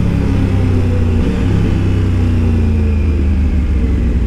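Motorcycle engine running steadily while riding, its note easing slightly lower for a moment in the middle, under a steady rush of wind noise.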